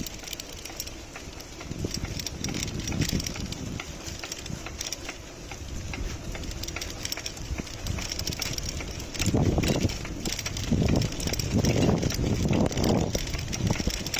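An old Stels bicycle being ridden, with a repeated ticking knock like a clock, which the uploader traces to the rear freewheel ratchet. A low rumble from riding grows louder about nine seconds in.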